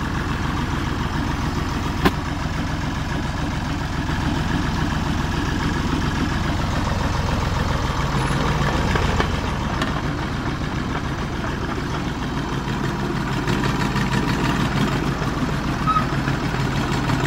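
Landini C5000 crawler tractor's Perkins 3P three-cylinder diesel engine running steadily. Its note changes about eight seconds in, and there is one sharp click about two seconds in.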